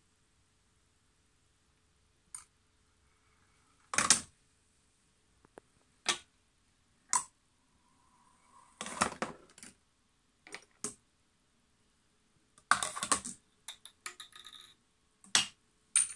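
A tabletop marble-run chain-reaction machine at work: marbles and small wooden parts clacking, knocking and dropping one after another. The clicks and knocks come singly a second or two apart, with a quick cluster of them a little before the end.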